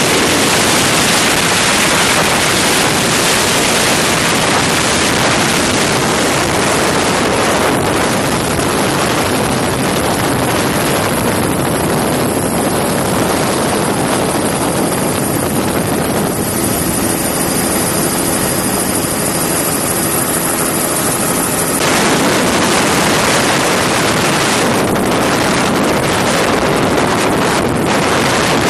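Steady, loud helicopter engine and rotor noise heard from aboard the aircraft, a dense even rush with no breaks.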